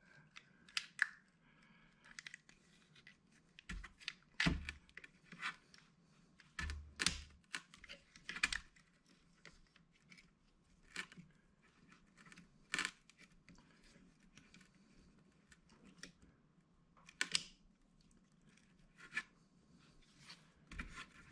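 Faint, irregular clicks, taps and short scrapes of metal stapler parts being handled and fitted back together.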